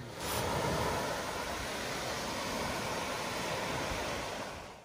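Steady rush of surf washing onto a sandy beach, mixed with wind, fading out near the end.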